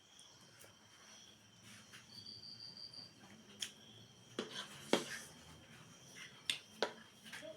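Eating sounds: a handful of sharp mouth clicks and crunches, the loudest about five seconds in. About two seconds in, an insect trills a steady high note for about a second.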